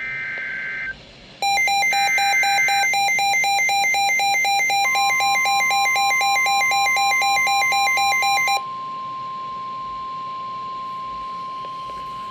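NOAA Weather Radio emergency alert signals: a short warbling SAME digital header burst at the start and another about two seconds in, then a loud, rapid two-pitch electronic alarm beeping for about seven seconds. About five seconds in, the steady 1050 Hz Weather Radio warning tone begins under the beeping and carries on alone after the beeping stops.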